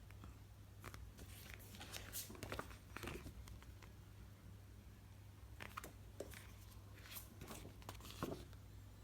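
Faint, intermittent rustling and crinkling of plastic packaging being handled, with a few small clicks and taps.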